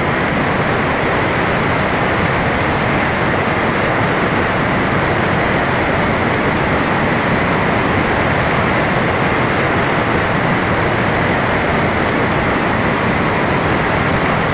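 A loud, steady rushing noise that does not change, with no rhythm or clear tone.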